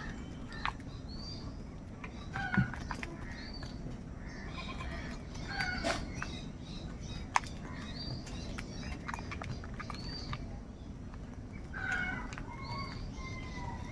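Several birds calling, house crows among them: short calls and chirps repeating every second or so, with a few sharp clicks in between, over a steady low background rumble.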